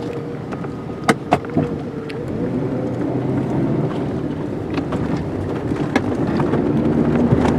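Car engine and road noise heard from inside the cabin as the car drives off, slowly getting louder as it picks up speed. Two sharp clicks sound about a second in.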